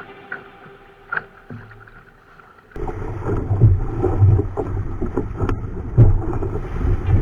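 Wind buffeting the microphone and water rushing along the hull of a small sailing yacht under way. It starts abruptly about three seconds in as a loud, gusty rumble with scattered splashes and knocks.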